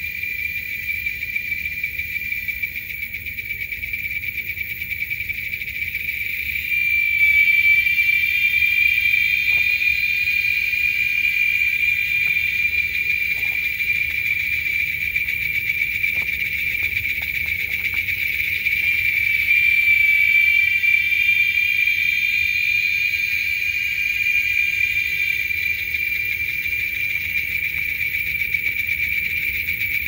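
Chorus of male giant cicadas: a continuous shrill, high-pitched drone, swelling louder about seven seconds in and again around twenty seconds.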